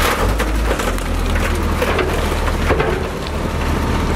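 Wheel loader's diesel engine running with a low drone under a dense crackling and clatter from the burning car beneath its bucket.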